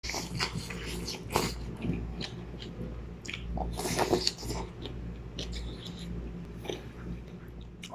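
A person slurping noodles in soup and chewing with wet smacking mouth sounds, with louder slurps about one and a half seconds and four seconds in. A steady low hum runs underneath.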